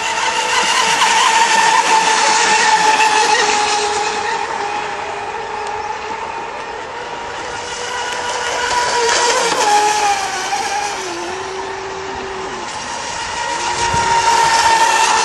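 Engines of Mono1 radio-controlled model racing boats running flat out, a steady high whine whose pitch bends and whose loudness swells and fades as the boats pass and move away.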